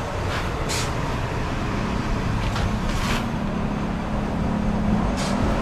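Steady mechanical hum and background noise inside a coffee shop-roastery. A steady low drone joins about two seconds in, and there are a few brief hisses.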